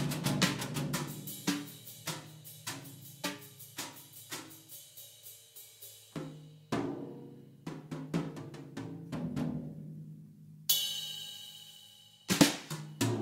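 Background music with a drum-kit beat of snare, hi-hat and cymbal. The beat thins to sparse hits about halfway through, a held tone takes over briefly near the end, and the full beat comes back just before the end.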